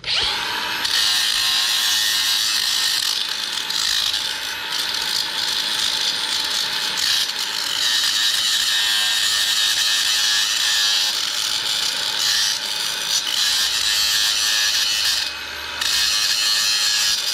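Handheld angle grinder running against steel pins, a steady loud grinding that eases off briefly near the end and then carries on.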